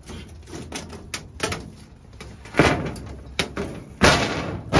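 Twin-wall polycarbonate greenhouse roof panels being handled in their aluminium frame: a run of light knocks and clicks, with two louder rattling scrapes about two and a half and four seconds in.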